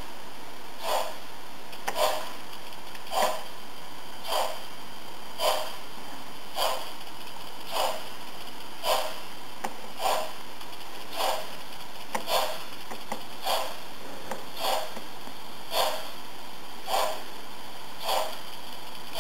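Märklin BR 10 steam locomotive model's digital sound decoder playing slow steam chuffs, one short puff about every second in a steady, unchanging rhythm. Behind them is a constant faint hiss, with a few small clicks between the puffs.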